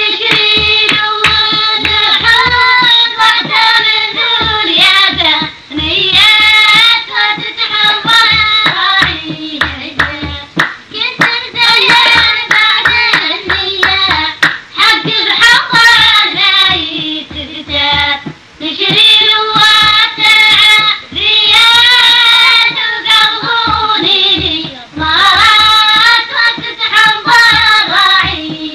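A high voice singing long, wavering phrases over hand clapping that keeps a steady beat, with short breaks between phrases.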